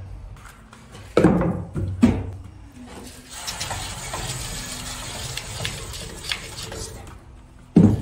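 Cordless drill with a cutting bit grinding away spray-foam insulation, a rough rasping hiss for about four seconds from around three seconds in.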